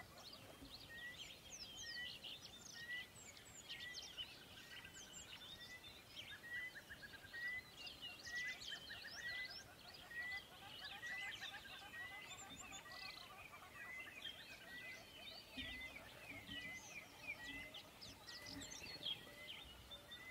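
Several birds chirping and singing, with one short chirp repeated about once a second among quicker, higher twitters.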